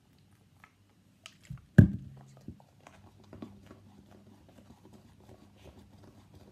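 Homemade glue slime, freshly activated with borax and still sticky, being kneaded and squeezed by hand. It makes a dense run of small sticky clicks and crackles. A single loud thump comes about two seconds in.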